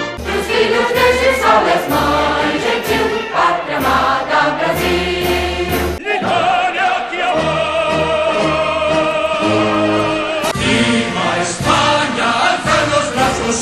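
Music with choral singing, cutting abruptly to a different piece about six seconds in and again about ten seconds in.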